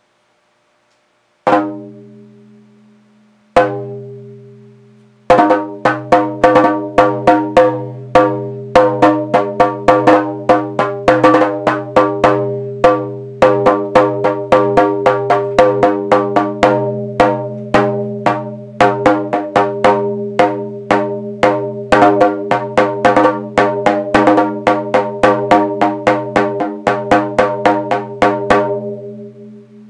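A drum struck twice, about two seconds apart, then beaten in a fast, uneven rhythm for over twenty seconds. Its strokes ring on in steady low tones beneath the hits.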